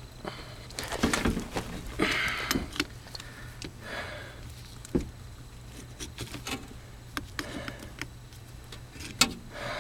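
Scattered scrapes and rustles with a few sharp knocks and clicks, from hands working on plumbing in a cramped crawlspace, over a steady low hum.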